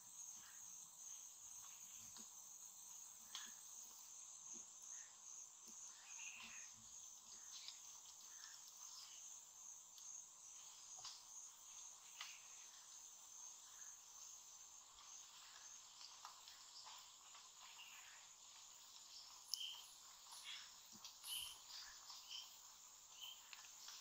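Faint Amazon rainforest ambience: a steady high-pitched insect drone, with short bird chirps scattered through it, a few of them louder near the end.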